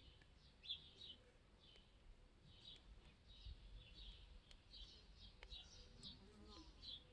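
Faint birds chirping: short high calls repeating about twice a second.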